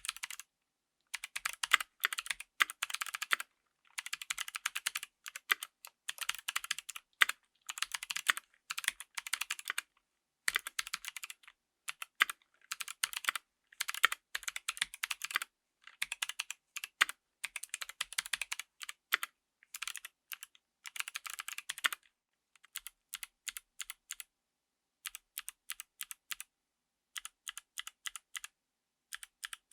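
Typing on a mechanical keyboard fitted with Kailh Speed Bronze clicky switches: dense runs of sharp key clicks, thinning to slower, spaced keypresses for the last third.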